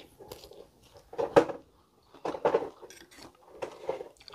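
Eating sounds: a utensil knocking and scraping against the stone mortar (coet) that holds the spicy tofu, with bits of chewing. They come in four or five short separate bursts, the loudest about a second and a half in.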